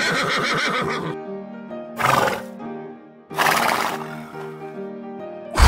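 Horse whinnying, the wavering call trailing off about a second in, followed by shorter breathy horse calls and a sharp burst near the end, over background music.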